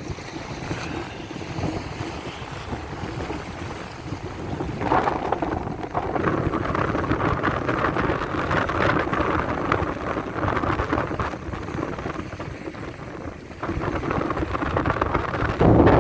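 Strong gusty wind buffeting a phone microphone, a rumbling rush that swells about five seconds in and again near the end.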